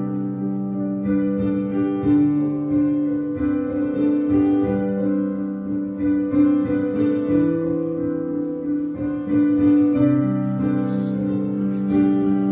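Instrumental keyboard music: slow, sustained piano-like chords that change every second or two, with no singing.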